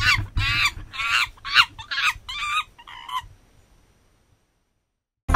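A quick series of about seven short, shrill animal calls over about three seconds, each sliding in pitch, followed by silence. Dance music cuts in right at the end.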